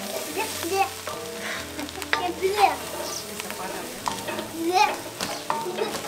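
Wooden spoon stirring and scraping mushrooms, onions and peppers frying in a cast iron pot, with a steady sizzle and repeated scrapes against the pot as flour is worked into the vegetables.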